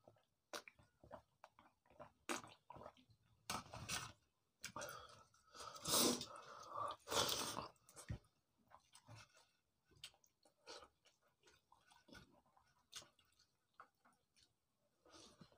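Close-up eating sounds: chewing mouthfuls of pakhal bhat (cooked rice soaked in water) with omelette and boiled egg, made up of many irregular wet smacks and clicks, loudest about six and seven seconds in.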